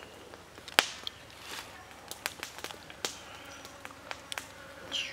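Scattered sharp clicks and soft wet taps of a raw squid being handled on a bamboo skewer against a wooden cutting board. The loudest click comes about a second in.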